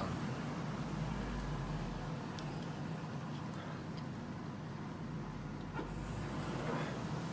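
Steady low background hum and rumble with a few faint clicks.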